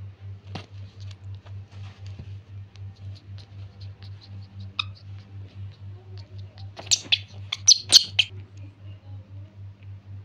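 Newborn macaque crying: a quick run of high-pitched squeals about seven seconds in, after a single short squeak a couple of seconds earlier. Under it a low hum pulses about three or four times a second.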